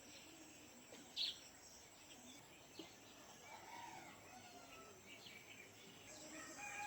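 Faint dawn village ambience with birds and fowl calling: a short, high chirp about a second in, then faint distant calls, one growing louder near the end.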